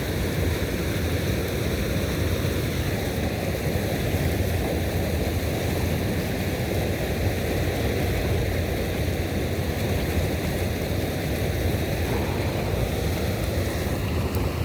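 Steady rushing outdoor noise with a strong low rumble and no distinct events.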